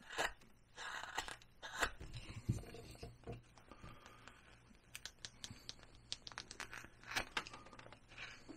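Hand-held carving V-tool slicing into basswood: an irregular string of short, faint cutting and scraping strokes with a few sharper clicks as the chips come away.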